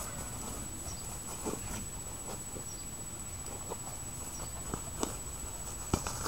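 A dog pushing a large ball across a lawn with its head: scattered, irregular soft knocks and thumps of the ball and paws, with one sharper knock near the end.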